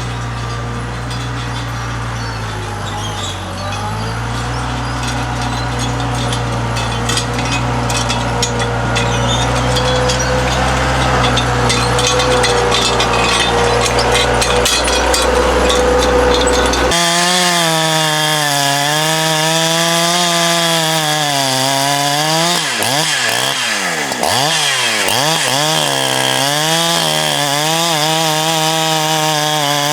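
A heavy engine runs steadily for the first half, with scattered knocks and clatter over it. The sound then cuts abruptly to a two-stroke chainsaw at high revs cutting dead oak, its pitch dipping and recovering as it bogs in the wood.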